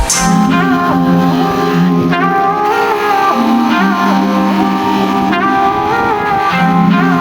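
Background music: a melodic instrumental with held low notes under a gliding lead melody.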